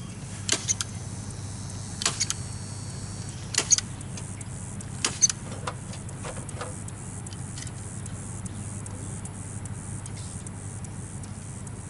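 Chicken wire being handled and fastened to a wooden coop frame: scattered sharp clicks and rattles, bunched in the first half, over a steady low hum.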